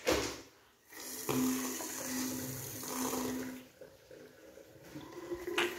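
Water running from a single-lever mixer tap into a white vessel basin, starting sharply about a second in, with a steady hum, and stopping a little over two seconds later. A brief bump is heard right at the start.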